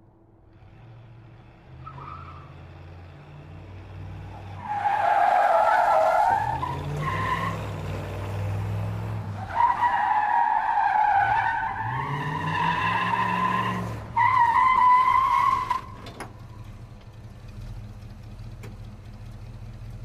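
Muscle car engine revving while its tyres squeal in long skids, with the engine pitch rising twice as it is pushed. After about sixteen seconds the squeal stops and the engine settles to a steady low idle.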